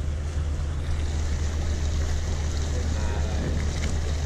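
Game-fishing boat's engine running at slow speed with a steady low drone, over rushing and splashing water from a striped marlin being swum alongside the hull to revive it before release.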